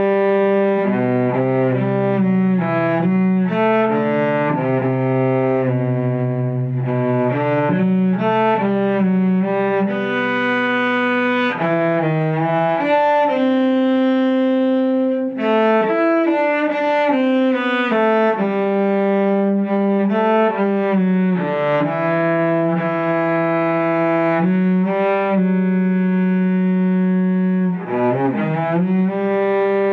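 Cello playing a slow, legato melody in long bowed notes that glide from one to the next, at about 70 beats a minute.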